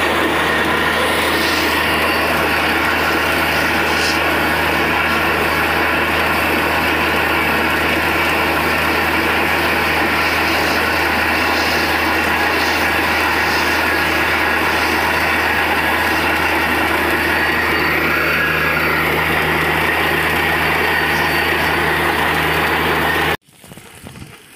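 Borewell drilling rig running loud and steady: a low engine drone with a dense rushing noise over it. It cuts off suddenly near the end.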